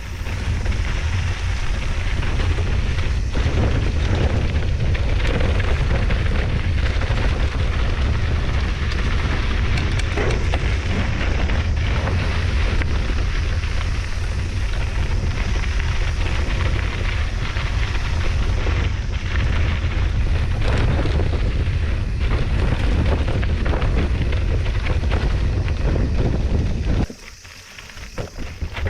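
Wind buffeting the microphone over the rumble and rattle of a mountain bike on a dirt trail, with scattered knocks from the bike over rough ground. The noise drops off briefly near the end, then picks up again.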